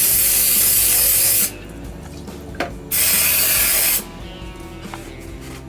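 Hissing spray cleaning sludge out of the bottom of an oil furnace's oil filter can: one burst that cuts off about a second and a half in, then a second burst about a second long in the middle.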